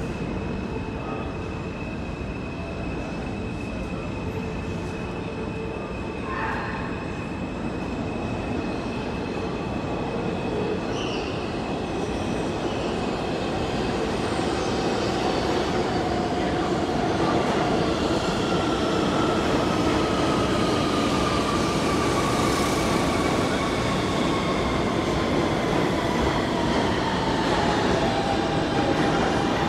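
R160 Siemens-equipped subway train pulling into the station and slowing to a stop. Its rumble grows louder from about halfway, and a whine falls steadily in pitch as it brakes. A high steady tone sounds through the first half.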